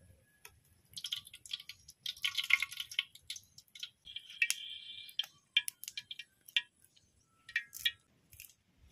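Cooking oil pouring from a glass jar into a large steel wok, splashing for about two seconds, then a short ringing and scattered sharp crackles.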